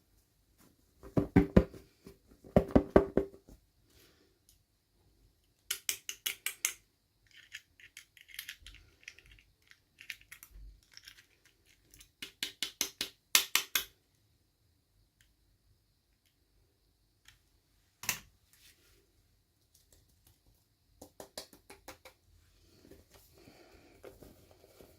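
Bursts of rapid small clicks and taps, like small plastic toy pieces and packaging being handled, coming in several runs with quiet gaps between. A single sharper click comes about eighteen seconds in, and soft rustling follows near the end.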